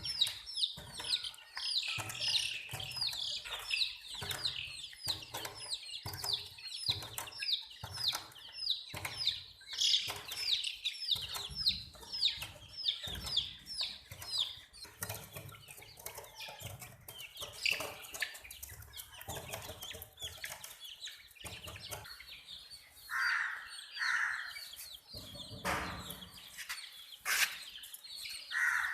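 Domestic chicks peeping: short, high, falling peeps several a second, dense for the first half and thinning out later, among scattered soft knocks. A couple of lower calls come near the end.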